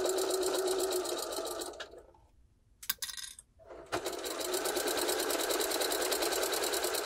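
Electric sewing machine stitching a curved seam in cotton fabric, a steady run of rapid, even needle strokes. It slows to a stop about two seconds in, a single click sounds during the short pause, and it starts stitching again about four seconds in.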